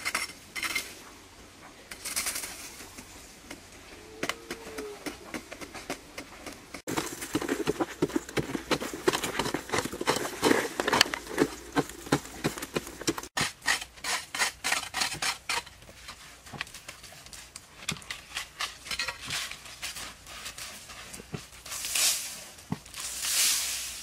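Digging in dry, loose soil: short scraping strokes as the dirt is loosened and scooped, with a quick run of scrapes in the middle and swells of dirt showering down near the end as it is tossed out of the pit.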